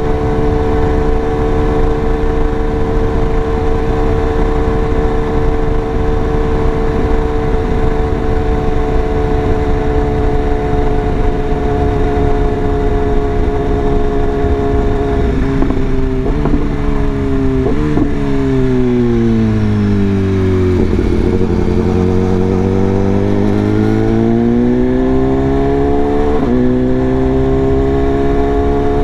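BMW S1000RR inline-four engine at steady cruising revs, then several quick downshifts with auto-blips about 16 to 18 seconds in as the bike slows and the revs fall low. The engine then pulls back up through the revs, with a quickshifter upshift near the end, and settles at a steady cruise.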